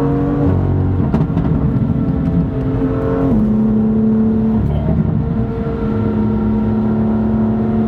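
BMW M2 F87's turbocharged straight-six engine running under way at steady revs, a steady drone that drops in pitch about three seconds in and briefly fades around five seconds in before holding steady again.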